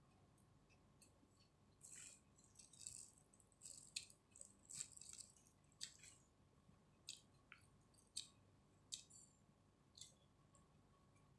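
Faint close-miked eating sounds: irregular wet clicks, smacks and crackles of chewing and handling chicken biryani, bunched between about two and ten seconds in.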